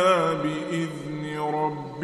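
A male reciter chanting a verse of the Quran in melodic tajwid style. His voice makes a wavering ornament, then holds a long note that slides down near the end.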